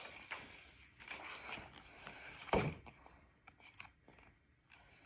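Light rustling and small taps of a picture book and its cardboard packaging being handled, with one louder knock about two and a half seconds in.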